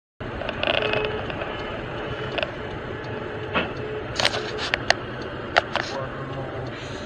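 Dashcam audio inside a moving car: steady engine and road noise with a low hum, cutting in just after the start. A series of sharp knocks and clicks comes between about three and six seconds in, as a car collides alongside a passing truck ahead.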